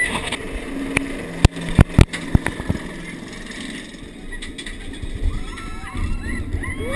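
Inverted roller coaster train cresting the lift hill: a few sharp clacks over a low mechanical hum in the first seconds, then wind building on the microphone and riders starting to scream as the train tips into the first drop.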